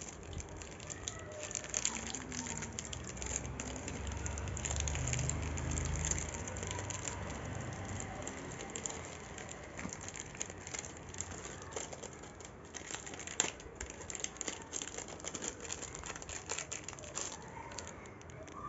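Plastic packaging and bubble wrap crinkling in irregular crackles as packets of jewellery are handled. A low rumble swells for a few seconds about four seconds in.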